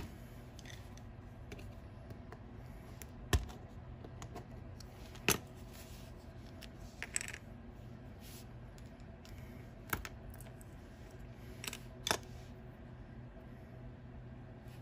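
Scattered small plastic clicks and taps as a small plastic LED converter housing is pried open and its tiny circuit board and wires are handled, over a low steady hum.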